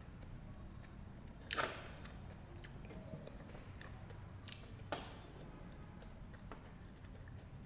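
A person biting into and chewing fresh fruit, with a few sharp crunches: one about a second and a half in and two close together around five seconds in, over a low steady hum.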